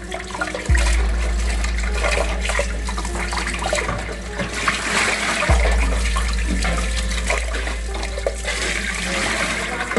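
Tap water running steadily while raw shrimp are rinsed by hand, with frequent small splashes and knocks.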